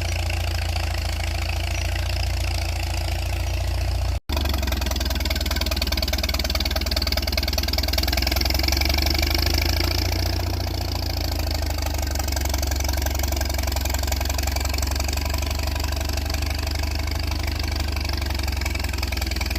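1945 Farmall M tractor's four-cylinder engine running steadily at idle, with a momentary cut-out about four seconds in.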